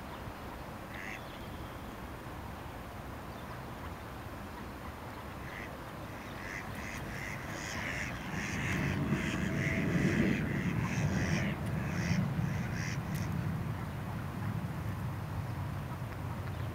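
Mallard ducks quacking in a quick series of short calls from about a third of the way in, with a low rumble swelling underneath them.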